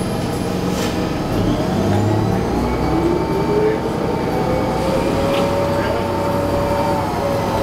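Heard from inside a 2011 New Flyer D40LFR transit bus with a Cummins ISL9 engine and Allison B400R transmission, accelerating away. A drivetrain whine rises in pitch over a few seconds, then holds steady over the engine's rumble.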